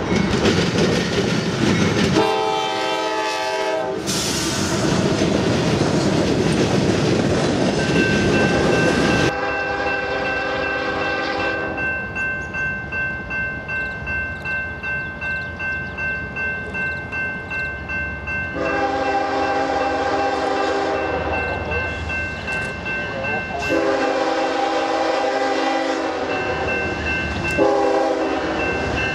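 Freight diesel locomotives passing: a short horn blast and the rumble of a coal train, then a Norfolk Southern GE ES40DC sounding its multi-chime horn in a series of long blasts for a grade crossing. A crossing bell rings steadily under the horn.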